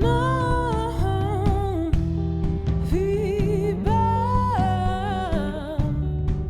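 A soulful song: a woman sings long, wavering held notes over guitar accompaniment, pausing for about a second midway before a second long phrase.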